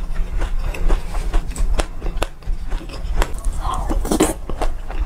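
Close-miked eating of a spoonful of mixed seeds, mostly sesame: many sharp crackly clicks as the seeds are chewed, with a louder mouthful a little after four seconds, over a low steady hum.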